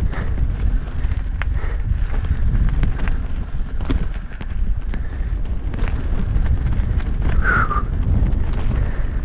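Wind buffeting an action camera's microphone on a mountain bike descent, over the tyres on dirt, with scattered knocks and rattles from the bike on rough ground. A brief squeak comes about seven and a half seconds in.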